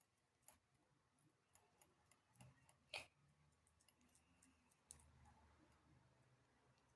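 Near silence with a few faint, scattered clicks, one sharper click about three seconds in.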